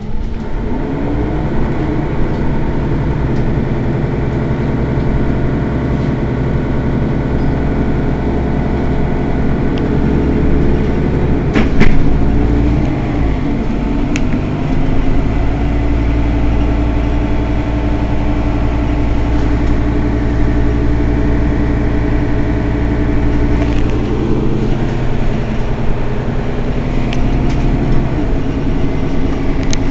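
Mercedes-Benz Citaro city bus's diesel engine idling steadily while the bus stands at a stop. A brief loud knock comes about twelve seconds in.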